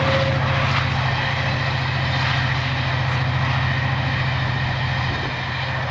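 Diesel locomotive hauling a passenger train, its engine giving a steady low drone with a fast, even throb.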